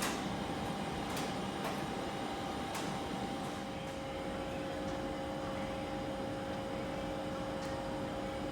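Steady hum and hiss of a train standing at a station platform, its ventilation and electrical equipment running, with a few steady whine tones. A few sharp clicks come in the first three seconds.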